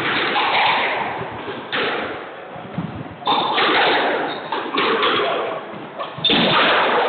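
Squash balls smacking off rackets and walls, echoing in a hard-walled squash court: a few sharp hits, the loudest about two, three and six seconds in, each with a long ringing echo over a steady hall din.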